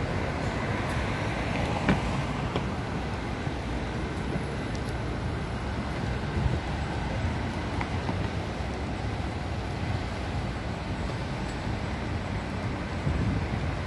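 Steady city street noise: traffic on a nearby road as a continuous low rumble, with a few light knocks about two and six seconds in.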